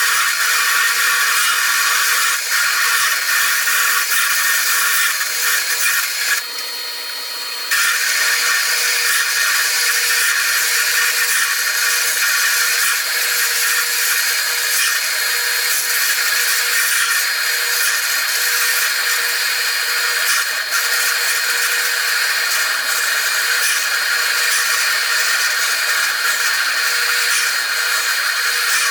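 Metal lathe running while a 1-1/16-inch drill bit cuts into a 2.5-inch steel bar: steady cutting noise over a constant machine hum. About six seconds in, the cutting noise stops for about a second while the hum carries on, then the cut resumes.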